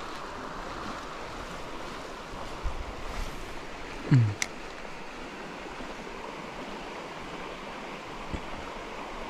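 River current flowing steadily, a low rush of moving water. About four seconds in comes a short sound falling in pitch, ending in a sharp click.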